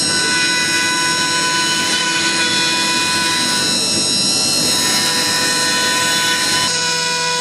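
CNC router's high-speed spindle, a Chinese spindle run by a VFD at about 20,000 rpm, whining steadily as its bit carves a pine door panel. The cutting noise mixes with the whine, and the sound changes abruptly about seven seconds in.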